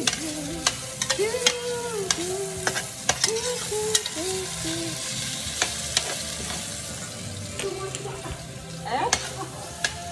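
Diced potatoes sizzling as they fry in a stainless steel pan, a metal slotted spoon stirring and scraping against the pan with frequent sharp clicks.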